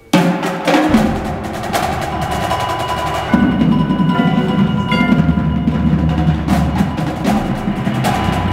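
High school indoor percussion ensemble: the whole group comes in with a sudden loud hit just after the start, then the battery of snare and marching drums plays busy patterns over the front ensemble's marimbas and vibraphones, with heavy low drum strokes and sustained pitched tones underneath.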